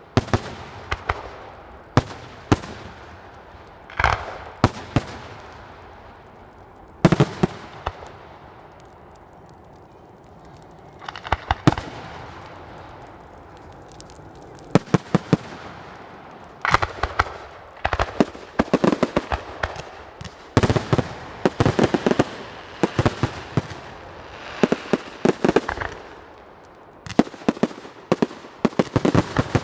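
Fireworks going off: sharp bangs, some single and some in rapid volleys, each with a short echoing tail. The bangs thin out for a few seconds around a third of the way in, then come thick and fast in the second half.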